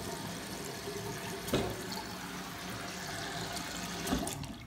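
Delta single-handle bathroom faucet running at full flow with no flow restrictor fitted, its stream splashing steadily into the sink basin. About a second and a half in there is a brief knock. Another knock comes near the end as the handle is pushed shut, and the flow then dies away.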